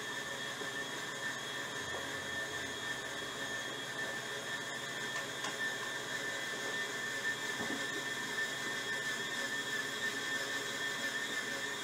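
Electric stand mixer running steadily as it kneads bread dough, its motor giving a steady high-pitched whine.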